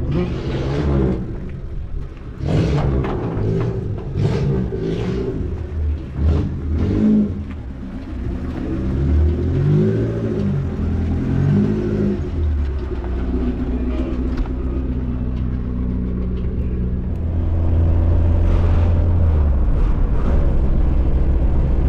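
Car stereo with its bass switched on, playing music with a heavy low bass that dominates the sound and shifts in steps from note to note.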